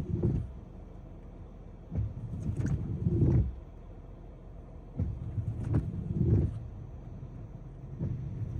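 Tesla Model Y windshield wiper blades juddering across the glass on repeated sweeps, one rough, chattering rub about every three seconds. The blades are skipping and making an abnormal noise because the glass coating was scraped up and pushed aside by the wipers.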